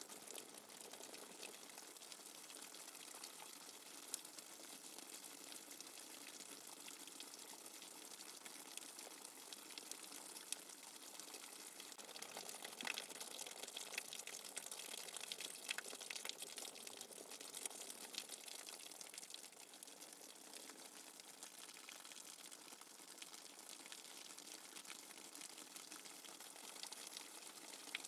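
Steady rain without thunder: a faint, even hiss of falling water flecked with fine drop ticks, swelling slightly about halfway through.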